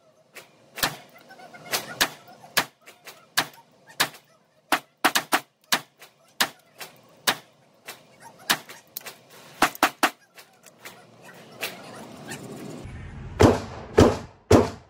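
Pistol shots in an indoor shooting range: a long string of sharp cracks, irregularly spaced a fraction of a second to about a second apart, some louder than others. Near the end a low rumble rises beneath three louder bangs.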